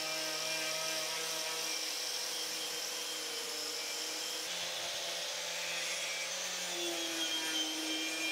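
Electric angle grinder with a wire cup brush running steadily against a rusty iron boat hook, scouring the rust off. The motor's whine shifts slightly in pitch a few times as the brush works the metal.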